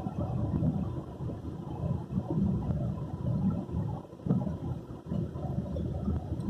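A car driving, a low uneven rumble of engine and tyre noise.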